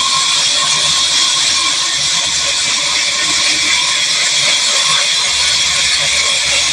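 Large sawmill band saw running steadily while a wooden plank is fed through its blade: a loud, continuous noise with no breaks.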